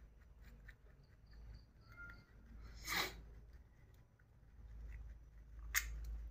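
Rabbits chewing fresh grass and leaves: faint, crisp crunching clicks. A short, louder burst of noise comes about three seconds in, and a sharp click just before the end.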